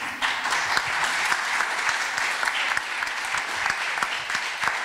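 Audience applauding: dense, steady clapping that starts suddenly and keeps going.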